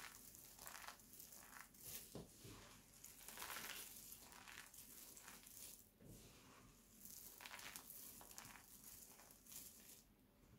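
Crumbled dried soap and starch crunching and crackling under fingers as hands squeeze and rake through the pile: a run of quiet, crisp scrunches that grows quieter near the end.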